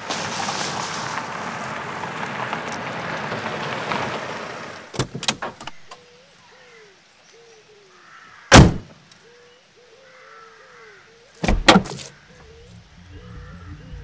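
Mercedes-Benz sedan driving up on a village road with a steady rush of tyres and engine, fading out about five seconds in, followed by the clicks of a door latch. Car doors then slam shut: one loud slam about halfway through and a quick double slam near the end.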